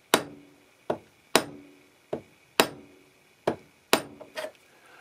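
Plastic hammer tapping the metal vial tube of a Starrett 98-8 machinist level, held in copper soft jaws in a vise, to drive it down and seat it. About seven sharp taps, half a second to a second apart, each with a short ring, then a couple of lighter taps near the end.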